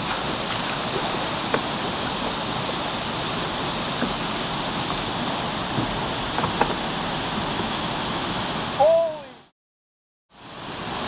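Steady rushing noise with a high hiss and a few faint clicks. Near the end comes a short voiced call that rises and falls, then the sound cuts out completely for about a second before the noise comes back.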